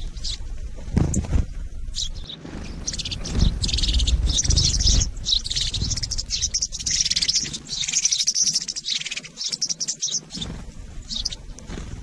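A feeding flock of yellowhammers and Eurasian tree sparrows chirping densely, many short high calls overlapping, busiest in the middle. There are a few low thumps and a low rumble close to the microphone early on.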